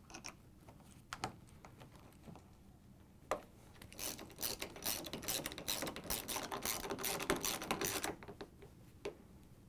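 3/8-inch ratchet and socket driving the refrigerator's hinge bolts in. A few single clicks come first, then about four seconds of rapid ratcheting clicks as the handle is swung back and forth, then one last click near the end.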